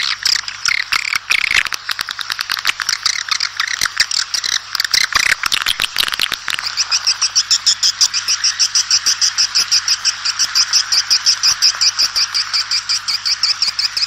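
Edible-nest swiftlets calling to the flock: a dense twittering of high chirps and rapid clicks. About halfway it settles into a fast, even run of sharp chirps.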